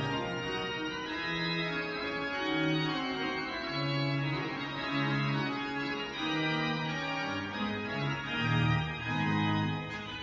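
Pipe organ playing a slow piece of held notes that change every second or so, with a bass line underneath.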